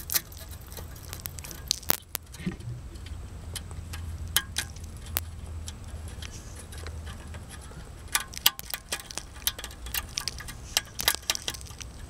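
Light metallic clicks and scrapes of a rusted exhaust gasket being worked by hand off its studs on the exhaust manifold, coming in quick clusters near the end, over a faint low hum.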